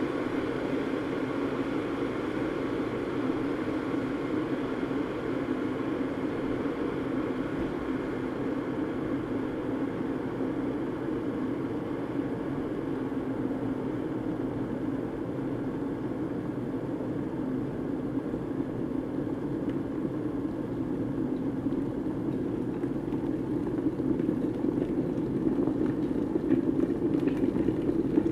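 Electric kettle heating water: a steady rushing rumble that grows somewhat louder over the last few seconds.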